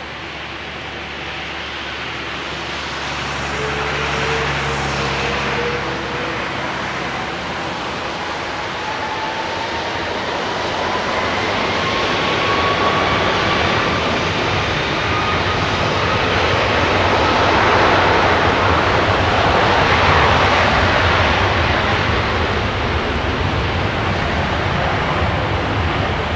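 Airbus A330-300 Rolls-Royce Trent 700 jet engines spooling up to takeoff thrust: a whine that climbs steadily in pitch over a rumble that grows louder as the airliner starts its takeoff roll.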